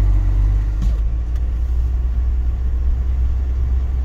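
Steady low rumble of a camper van's engine and tyres on the road, heard from inside the cab while driving.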